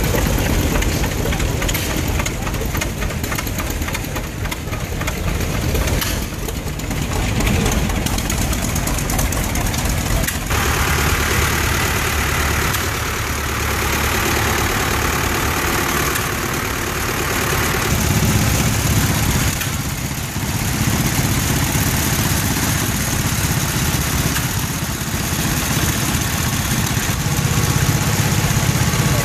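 Engines of antique farm tractors running at low speed as tractors drive past one after another, first a Farmall, then a blue Ford, then a small garden tractor; the engine sound changes abruptly at about ten and twenty seconds in.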